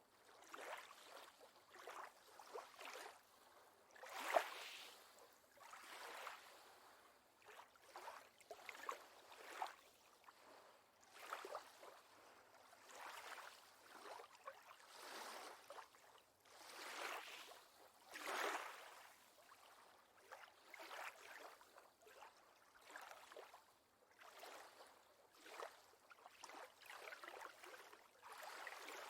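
Faint lake water lapping and gurgling in soft, irregular splashes, with one slightly sharper splash about four seconds in.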